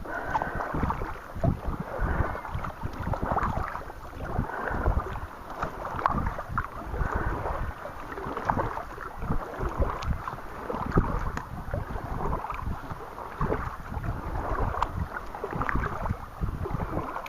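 Paddle strokes from an Advanced Elements kayak, dipping and splashing in calm water, with wind buffeting the microphone.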